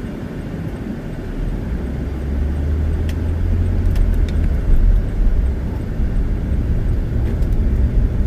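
Car engine and road noise heard from inside the cabin: a low rumble that grows louder about a second and a half in as the car gathers speed.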